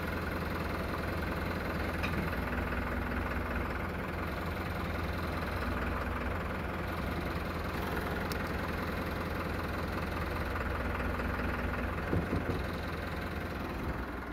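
Tractor engine idling steadily, with a couple of faint clicks.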